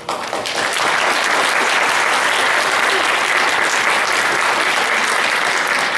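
Audience applauding: dense clapping that builds within the first second and then holds steady and loud.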